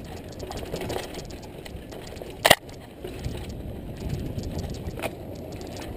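Mountain bike rolling down a rocky trail: a steady low rumble and rattle of tyres and bike over the rocks, with one sharp, loud knock about two and a half seconds in and a smaller click near the end.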